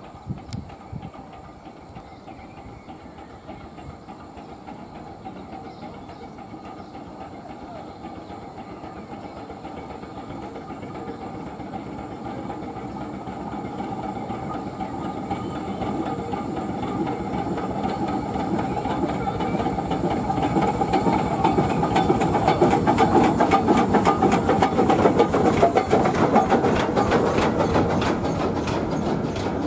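A train approaching and passing close by: a rumbling hiss that grows steadily louder and is loudest about three quarters of the way in, then rapid clicking of wheels over rail joints near the end.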